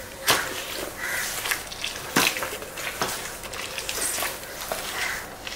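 Spotzero spin mop's wet cotton head scrubbing across a tiled floor, with a few sharp knocks from the plastic mop head and handle along the way.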